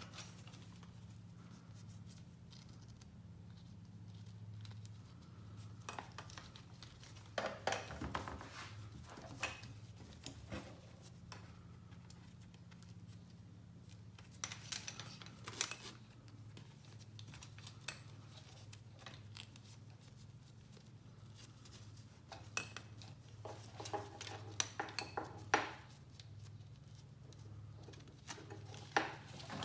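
Nylon webbing strap rustling and sliding, with plastic buckle and tri-glide clicks and light taps against a rigid MOLLE panel, as the strap is threaded through the panel's slots, in scattered bursts over a steady low hum.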